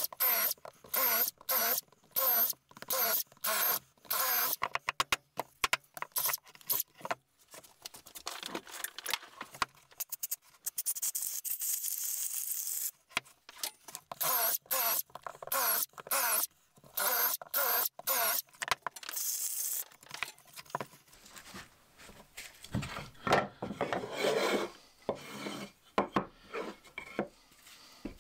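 Cordless drill boring holes into a birch log in many short bursts, the motor whirring up and down, with one longer run of drilling partway through. In the last third the drilling stops and the log scrapes and rubs as it is handled on a wooden board.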